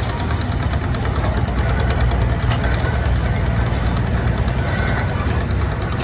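Antique Insley dragline excavator's engine running steadily.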